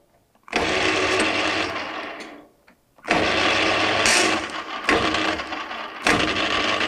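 CTC280 bench lathe's motor and headstock gearing starting abruptly, running with a steady hum for about two seconds, then winding down and stopping. About three seconds in it starts abruptly again and runs on, getting louder briefly about six seconds in.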